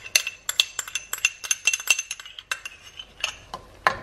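Metal teaspoon clinking repeatedly against a small ceramic pot as tomato sauce is scooped out of it. The clinks are quick and irregular, with a short pause about halfway and one louder clink near the end.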